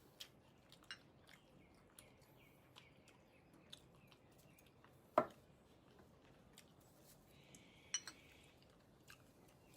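Quiet background with scattered faint clicks and light taps, one sharper tap about five seconds in.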